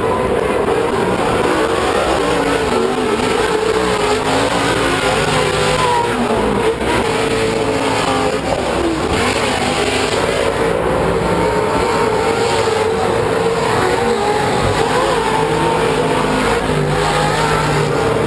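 Several Pro2 short-course off-road race trucks' V8 engines running on the track as a constant loud din, their pitch rising and falling as they accelerate and back off through the corners.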